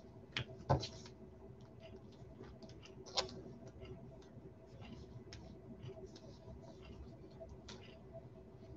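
Faint clicking and light rustling of trading cards being handled and flipped through, with a few sharper clicks scattered among them.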